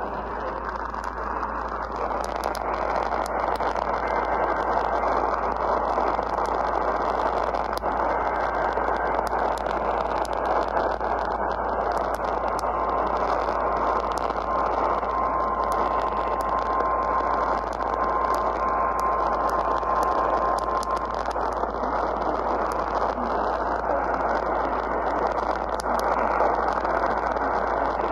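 Radio receiver static between broadcasts: a steady muffled hiss with scattered crackles and a low hum underneath. A thin steady tone sounds for about eight seconds in the middle.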